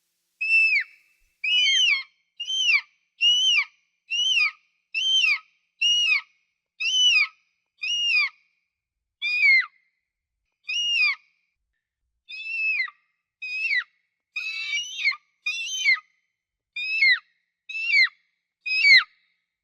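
An eagle calling: a long series of short, high, whistled cries, roughly one a second, each rising slightly and then dropping sharply in pitch, with a pause of a couple of seconds about halfway through.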